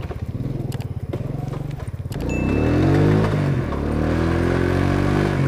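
Engine of a C50 step-through motorbike running with a fast, even putter, then accelerating about two seconds in: its pitch rises, eases slightly and holds steady at a higher pitch.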